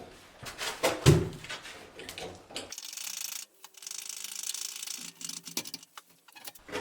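A jack being worked to lift a heavy fireplace insert: irregular clicks and knocks of the jack's mechanism, the loudest about a second in, then a quieter stretch with a faint steady hum from about three seconds in.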